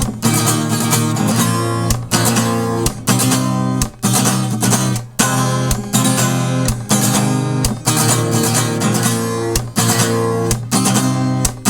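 Acoustic guitar strummed in a steady rhythm, chords played without singing as an instrumental passage.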